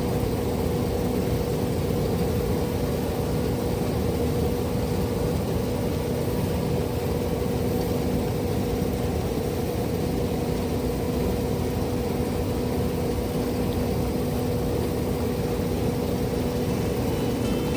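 Case IH Axial-Flow 9250 combine harvester running steadily under load while harvesting wheat: an even machinery drone with a constant low hum.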